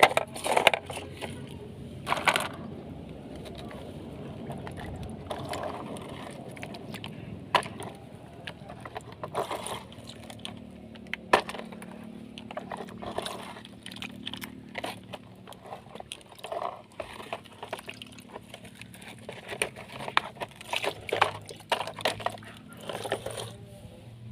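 Excavator working in water: repeated splashing, sloshing and sharp knocks, with a steady low hum joining from about ten seconds in.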